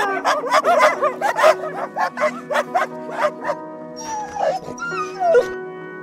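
Puppies barking and yipping in quick succession for about three and a half seconds, then a couple of falling whines, over background music with long held notes.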